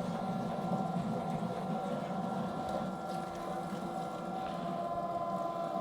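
Electric meat grinder running steadily, its motor giving a constant hum with a higher whine over it, set up with the 3 mm plate for the second grind of pork.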